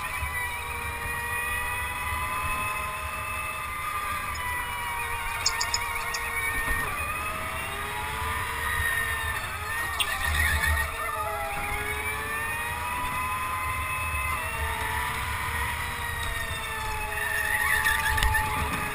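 Go-kart motor heard on board during laps, a whine that falls off into the corners and climbs again on the straights, over low road and tyre noise.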